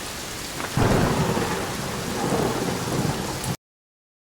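Steady rain with a thunderclap that breaks in just under a second in and rumbles on for about three seconds, then the sound cuts off suddenly.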